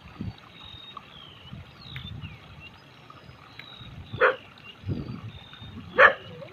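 A dog barking twice, short sharp barks about four and six seconds in, with small birds chirping thinly throughout.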